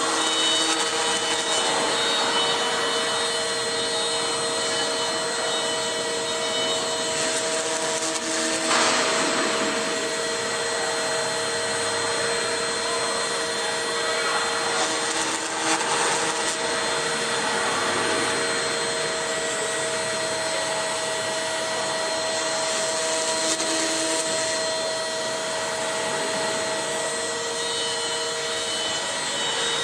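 CNC router spindle running at high speed while its long cutter mills a foam block: a steady whine of several held tones over the hiss of cutting, briefly brightening about three times.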